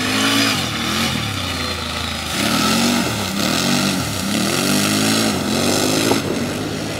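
An engine revving up and down over and over, each rise and fall in pitch lasting about a second, stopping a little before the end.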